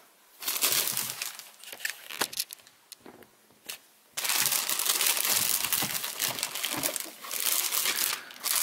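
Clear plastic bag crinkling as hands unwrap a router. It comes in bursts for the first two seconds, goes almost quiet with a single click, then crinkles steadily from about four seconds in.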